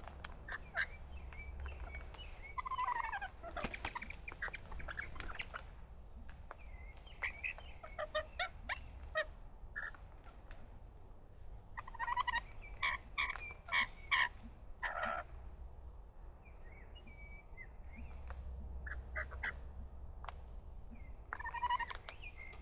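Parrots calling: clusters of short, sharp chirps and squawks, several of them sliding down in pitch.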